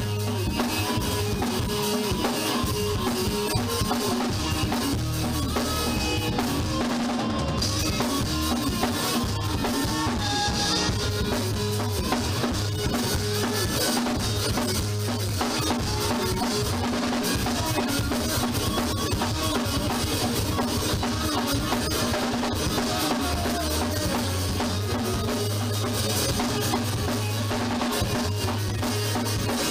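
A band playing a song at practice, with the drum kit's kick, snare and rimshots to the fore over the other instruments. It is a rough, low-quality rehearsal recording.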